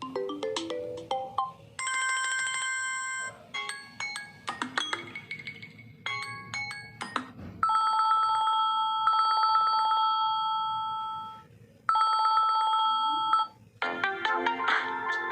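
Samsung Galaxy A13 ringtones previewed one after another, each cut off after a second or a few. There are short electronic melodies and a two-tone trilling ring that sounds for about four seconds, stops, and sounds again briefly before a busier tune starts near the end.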